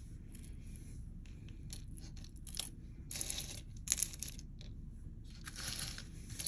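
Loose costume-jewelry earrings of metal, shell and leather clicking and rustling against each other as a hand rummages through the pile, in scattered short rattles with the sharpest click about four seconds in.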